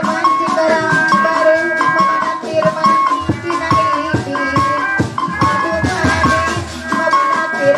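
Live Sundanese gamelan music: kendang hand drums beat a driving rhythm under ringing bronze metallophone notes.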